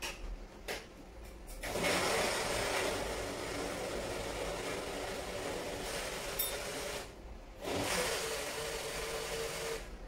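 Electric blender running in runs of several seconds, stopping briefly about seven seconds in and again near the end before starting up again.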